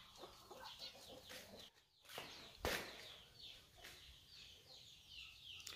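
Faint clucking of roosters mixed with short, falling chirps of small birds, with a single sharp knock about halfway through.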